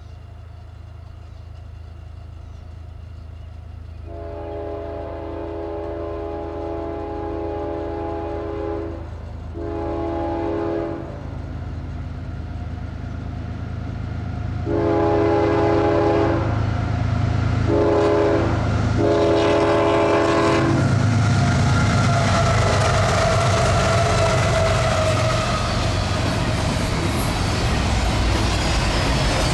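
CSX diesel freight locomotive's air horn blowing for a grade crossing as the train approaches: a long blast about four seconds in and a short one, then three more blasts between about 15 and 21 seconds in. After that the locomotives rumble past and the double-stack container cars roll by with wheel clatter, growing louder.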